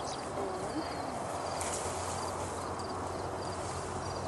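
Steady outdoor field noise with insects chirping in short, evenly repeated high bursts, and brief rustles as flax and weed stems are handled by hand.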